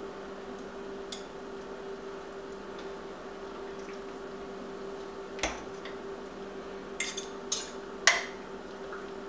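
Metal forks clinking against the stoneware crock of a slow cooker while shredding cooked pork: a few sharp clicks, several close together near the end, over a steady hum.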